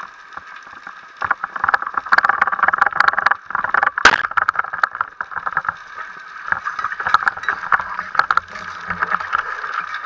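Speargun firing underwater: one sharp crack about four seconds in, amid the steady crackling and hiss of the sea picked up by an underwater camera, with scattered clicks and knocks from the diver's movements.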